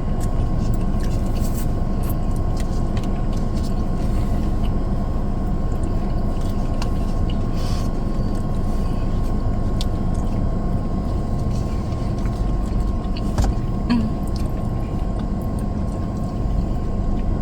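Steady low rumble and hum of a car running, heard from inside the cabin, with a few faint small clicks of eating and handling food.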